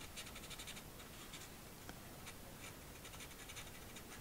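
Faint scratching of a graphite pencil on drawing paper: a quick run of short strokes in the first second, then a few single strokes.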